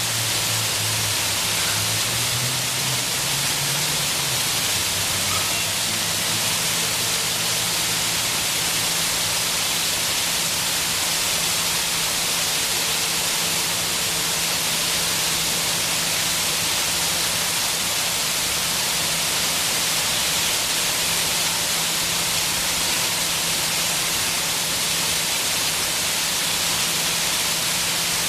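Water-curtain fountain: many thin streams of water falling onto a paved surface, giving a steady, even hiss of splashing.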